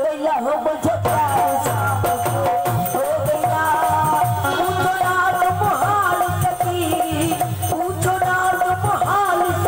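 Live bhajan music: a harmonium melody over a steady hand-drum beat of about two strokes a second, with shaken jingling percussion on top.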